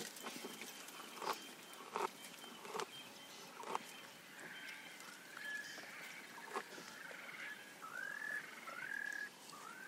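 Scattered sharp snaps of twigs and leaves being pulled and stripped by a browsing giraffe. Through the second half a bird calls in short, repeated whistles that curve up and down.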